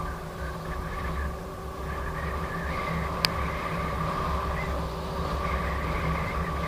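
Electric unicycle ridden at speed: a steady motor whine over low wind and road rumble, with a single sharp click a little over three seconds in.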